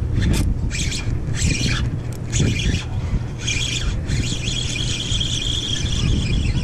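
Spinning reel's drag buzzing in short spurts as a hooked mackerel pulls line, then a longer steady buzz over the last couple of seconds. Wind rumbles on the microphone underneath.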